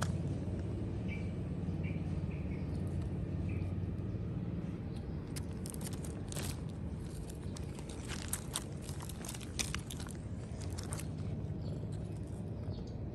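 Light crunching and sharp clicks of loose gravel stones shifting as a cat moves about on them, over a steady low hum. A few faint short chirps sound in the first few seconds.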